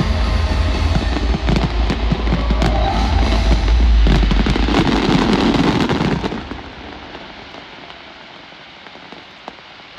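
The final barrage of a fireworks display: a dense run of bangs and crackles with deep rumbling, over the show's music. It stops suddenly about six seconds in, leaving a much quieter background.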